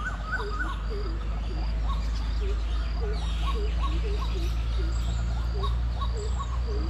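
Short animal calls repeated steadily, about two or three a second. Each is a quick dipping note. A faint, regular high chirping runs over them, and a steady low rumble underneath.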